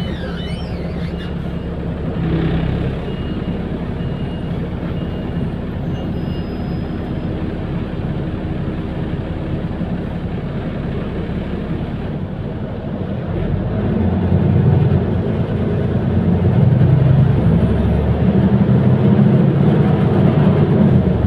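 City bus running, heard from inside the cabin: a steady drivetrain and road rumble with a short hiss about two seconds in. The rumble grows louder about two-thirds of the way through as the bus speeds up.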